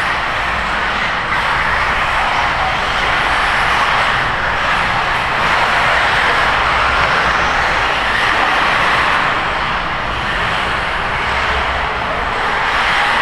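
1/8-scale radio-controlled racing buggies running laps on a dirt track: a steady, loud buzz of their small motors that swells and eases as the cars accelerate and pass.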